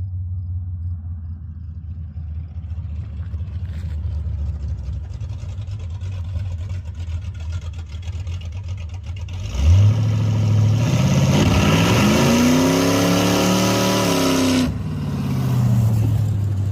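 Big-block Chevy V8 drag car idling low and steady, then about nine and a half seconds in it launches at full throttle, its engine climbing in pitch and running loud for about five seconds. The sound drops off abruptly, and the pitch then falls away.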